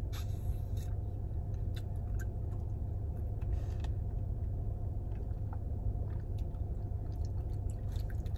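A person chewing food, with scattered small wet clicks and squishes of eating, over a steady low hum.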